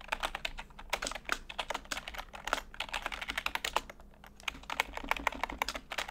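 Typing on a computer keyboard: quick runs of key clicks, with a short pause about four seconds in.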